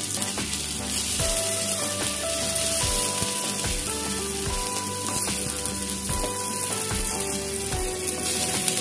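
Fish tail and crushed ginger shallow-frying in a little oil in a nonstick pan, a steady sizzle, with background music.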